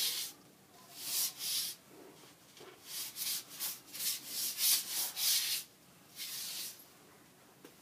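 A cloth rubbed hard back and forth across a tabletop mat, wiping up spilled methylated spirits: several bursts of brisk scrubbing strokes with short pauses between.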